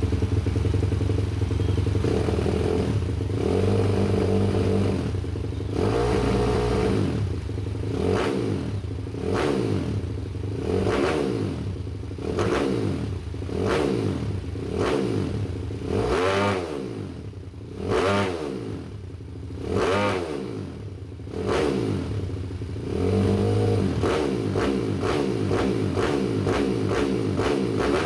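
Kawasaki KLX 150L single-cylinder four-stroke engine, built with an XRM 125 four-valve head and a 70 mm forged piston. It runs steadily, is revved again and again through the middle in quick throttle blips that each rise and fall, then settles back to a steady run near the end.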